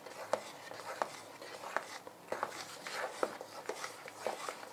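A kitchen utensil clicking and tapping against a mixing bowl while mousse is mixed, in an irregular run of light, sharp ticks.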